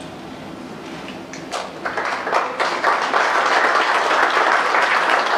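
Audience applauding: scattered claps about a second and a half in swell within a second or so to steady, full clapping.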